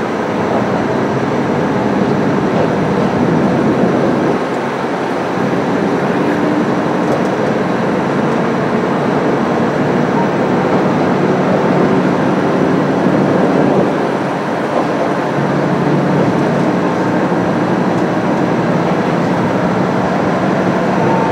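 Kantetsu KiHa 350 diesel railcar under way, heard from inside the rear cab: a steady drone of the underfloor diesel engine mixed with running noise of the wheels on the rails, dipping briefly twice.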